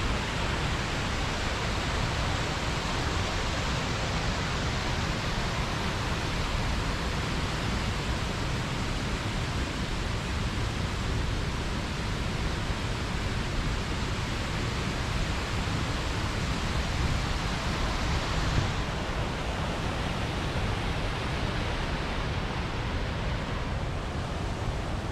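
Steady rush of water spilling over a small river weir.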